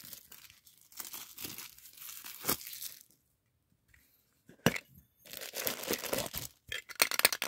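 Plastic shrink wrap being peeled and torn off a Funko Soda collectible can, with crackly crinkling. Partway through there is a short silence, then a single sharp click, and the crinkling resumes.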